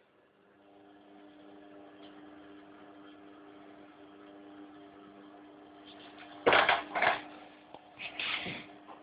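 Washing machine running with a steady motor hum. Two sharp knocks and then a short rattling clatter come near the end.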